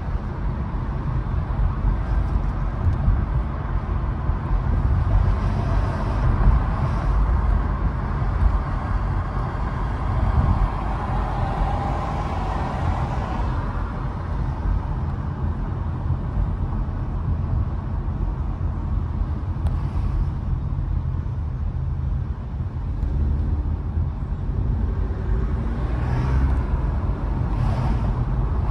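Steady road noise from a car driving on a city street: a low tyre and engine rumble with a hiss over it that swells for a few seconds around the middle.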